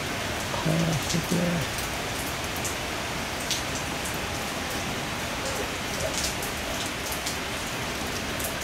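Heavy thunderstorm rain falling steadily, with scattered drops pattering sharply on nearby surfaces. A brief voice-like sound comes about a second in.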